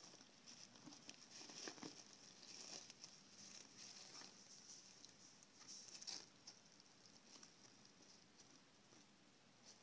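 Very faint rustling and small clicks of hedgehogs stirring in their nest bedding, over a faint, wavering high-pitched peeping that fades out about six seconds in, typical of newborn hoglets.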